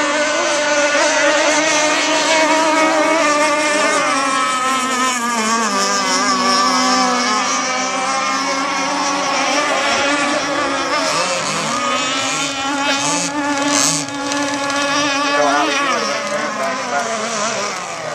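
Several gas-engined radio-controlled racing catamarans running flat out together, their high engine whines overlapping and wavering in pitch as the boats pass and turn around the buoys.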